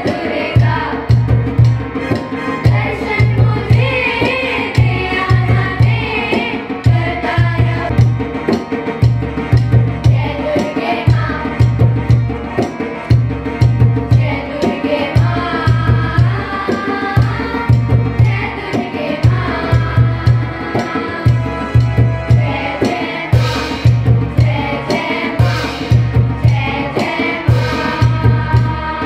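A group of children singing into microphones over recorded music with a steady low drum beat.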